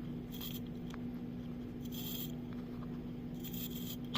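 Manual winding of an automatic watch movement by turning its crown with the fingers: short scratchy rasps about every second and a half, over a steady low hum.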